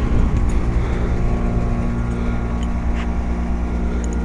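Two Luxaire Acclimate Series heat pump outdoor units running in cooling mode: a steady hum of compressors and condenser fans.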